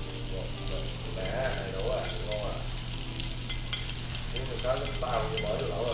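Chopped lemongrass, chili, garlic and shallot sizzling in hot oil in a frying pan as they are scraped in from a plate with chopsticks. There is a steady hiss with scattered crackles throughout.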